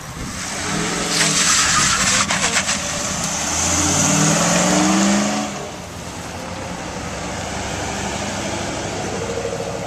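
Third-generation Chevrolet Camaro's engine revving hard as it accelerates past, rising in pitch, with a loud rushing exhaust roar for a few seconds. After about six seconds it drops to a quieter, steady engine sound as a Shelby GT500 rolls by.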